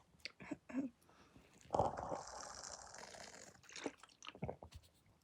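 A person's held-back breathing: a few small clicks, then a breathy exhale that starts sharply and trails off over about two seconds, then a few more clicks.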